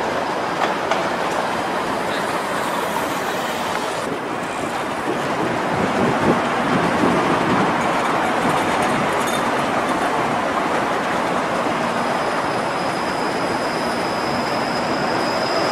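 Flexity Outlook low-floor streetcar running on its rails, its running noise building about six seconds in and holding. A thin high whine comes in over it near the end.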